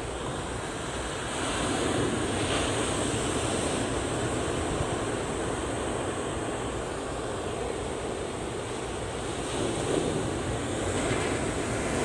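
Low surf breaking and washing over a rocky shore: a steady rush of waves that swells slightly about a second and a half in and again near the end, with some wind on the microphone.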